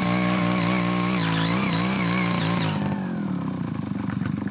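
Small engine of a CY80 garden tiller running at working speed with its rotary tines in the soil, its pitch wavering under load. About three seconds in it is throttled back and drops to a low, pulsing idle.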